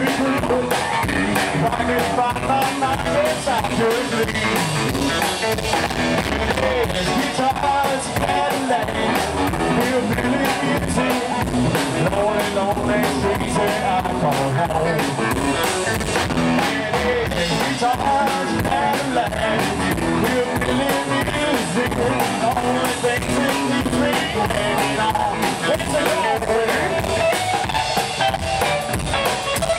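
Live rockabilly band playing an instrumental stretch: twanging electric guitar over a driving drum kit and upright bass.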